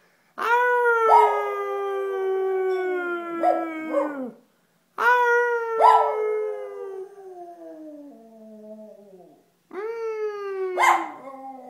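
A man and a small white dog howling together in long, drawn-out howls that slide down in pitch, three rounds in a row, the dog's higher howl joining in partway through each.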